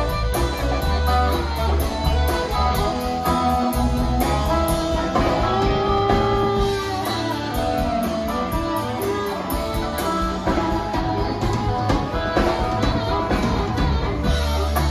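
Live blues-rock band playing an instrumental passage: electric guitar, electric bass, drum kit with a steady cymbal beat, and keyboards, with an amplified harmonica blown into a hand-held microphone.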